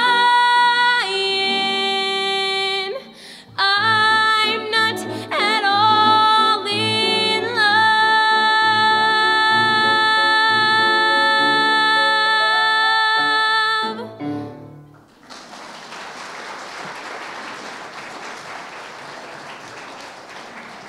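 A girl's solo voice singing the closing phrases of a show tune over piano accompaniment, with long held notes; the song ends about 14 seconds in. Then an audience applauds.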